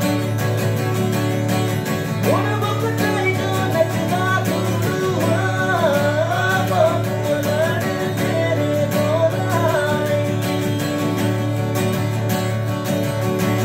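A man singing to his own strummed acoustic guitar. The guitar strumming keeps a steady pattern, and the voice comes in about two seconds in and drops out a few seconds before the end.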